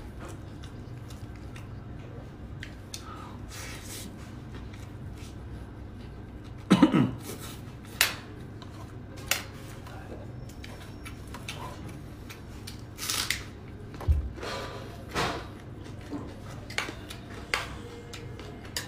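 A metal spoon scraping and clinking against a metal serving pan as rice is scooped up and eaten, with scattered short mouth and chewing sounds. The loudest is a short, lower sound about seven seconds in.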